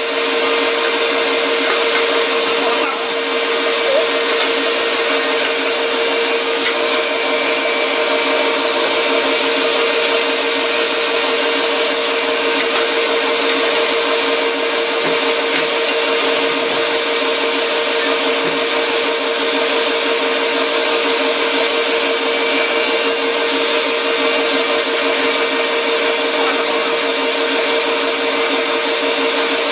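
Electric stand mixer running steadily with a constant whine, whisking eggs and sugar for a sponge cake batter.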